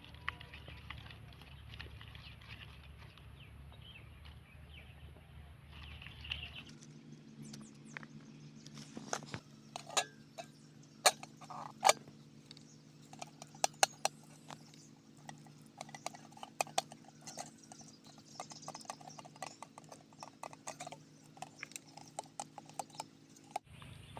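Irregular sharp clicks and cracks, some loud, over a steady low hum, starting abruptly about seven seconds in after a stretch of quiet outdoor ambience.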